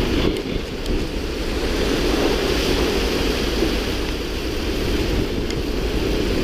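Steady rushing of wind and sea waves, with wind buffeting the microphone.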